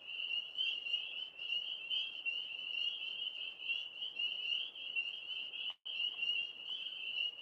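A chorus of frogs calling without pause, many overlapping high-pitched pulsing calls at one pitch. The sound cuts out for a split second near the end.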